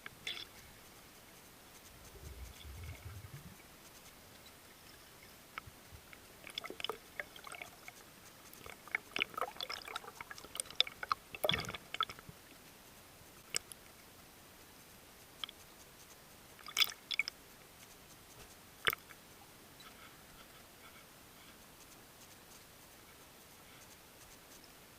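Scattered faint clicks and crackles heard underwater, bunched in a busier stretch in the middle and a few sharper ticks later, with a brief low rumble about two seconds in.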